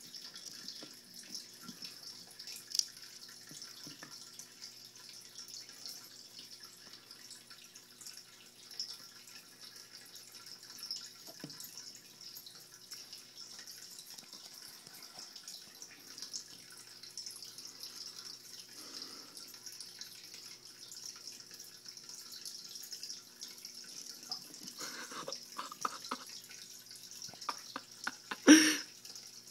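Water in a turtle tank trickling and dripping steadily, with a faint low hum and scattered small clicks. A single loud knock comes near the end.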